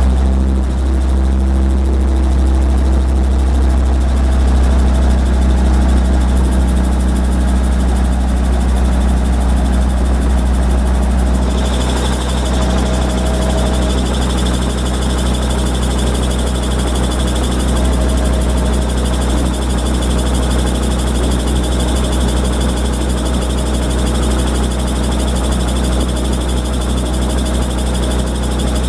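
Robinson R22 Beta II helicopter's four-cylinder Lycoming piston engine and rotor running steadily on the ground, heard from inside the cabin as a loud, deep drone. About twelve seconds in, a higher whine and hiss come in over it.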